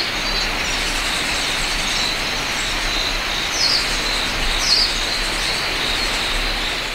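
Forest ambience: birds give short chirps three times over a steady noise hiss, fading in at the start and out near the end.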